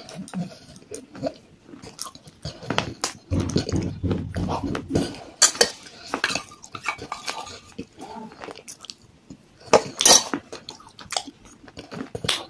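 Chewing and swallowing a thick white paste, broken by sharp clinks of a stainless-steel spoon and bowl against a steel plate. The loudest clinks come about halfway through and again a couple of seconds before the end.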